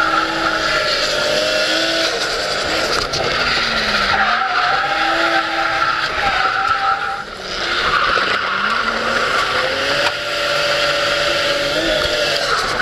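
Drift car heard from inside the cabin: the engine revving hard, its pitch falling and climbing again several times, over the steady squeal of tyres sliding through the drift.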